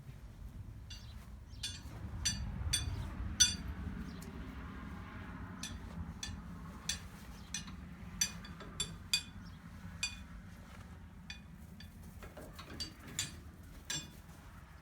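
Sharp metallic clinks at irregular intervals, roughly one or two a second, over a low rumble during the first few seconds.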